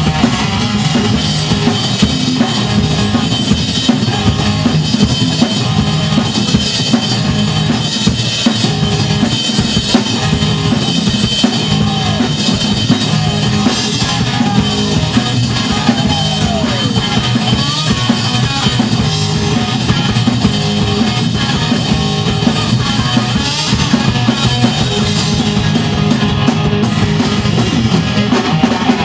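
Two-piece rock band playing live: an electric guitar and a drum kit playing loudly and without a break.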